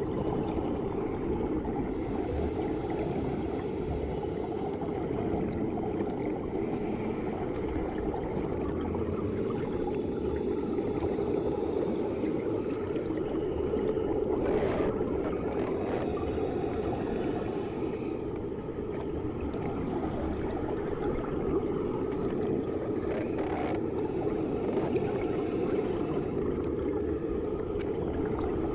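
Muffled underwater sound of a swimming pool as heard below the surface: a steady low rushing of moving water, with two brief louder bursts about halfway and about two-thirds of the way in.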